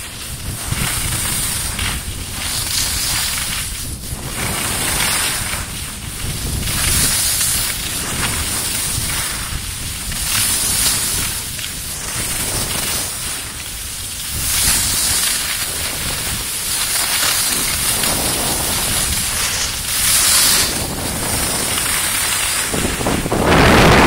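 Wind rushing over the microphone while riding fast down a groomed snow slope, with a low rumble and the hiss of edges scraping the snow that surges every second or two with the turns. It grows louder near the end.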